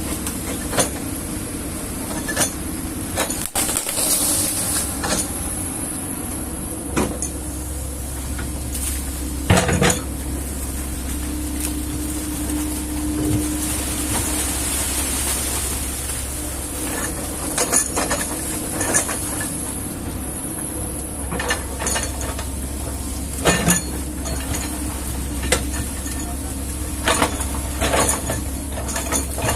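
Kobelco excavator's engine running steadily, with irregular sharp metallic clanks and knocks from the machine working.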